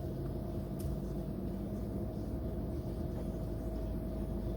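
Steady low hum of a running car heard from inside the cabin, with a faint click about a second in.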